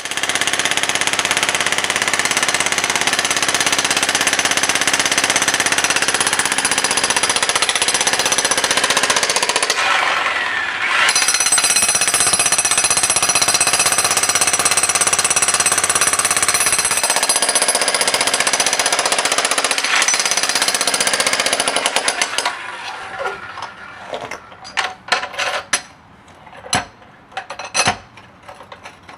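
Jackhammer hammering continuously at a rapid, even rate, with a brief let-up about ten seconds in. In the last several seconds it runs in short, stop-start bursts.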